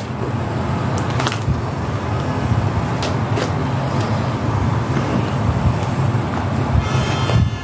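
Scissors cutting a parcel's paper wrapping: a few sharp snips and clicks, and a short rasping cut near the end, over a steady low rumble of background noise.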